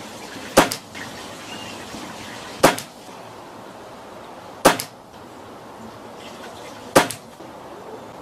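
Four shots from a regulated .177 Reximex Regime pre-charged pneumatic air rifle, one about every two seconds. Each is a sharp double crack.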